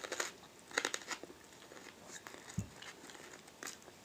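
A person biting into and chewing grilled wild onion leek close to the microphone: a few short, irregular wet crunches and crackles as the fibrous stalk is bitten and pulled apart, with a low soft thump about two and a half seconds in.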